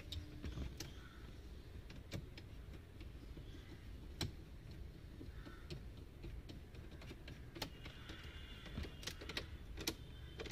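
Scattered sharp clicks and taps of a screwdriver and hard plastic dashboard trim as the centre panel of a car's dashboard is fitted and screwed in place. They come irregularly, about one or two a second, and bunch together near the end, over a faint steady low hum.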